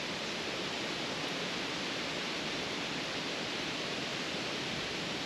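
Steady, even hiss of background noise, with no distinct event.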